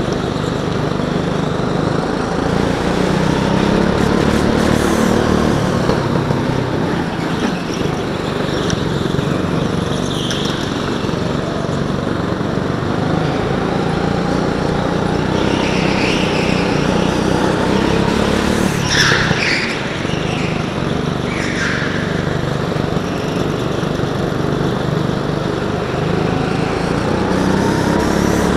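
Go-kart engine heard from onboard, running hard and rising and falling in pitch as the kart accelerates and slows through corners, with other karts' engines close by. A few short high squeals, from tyres sliding on the smooth floor, come about two-thirds of the way in.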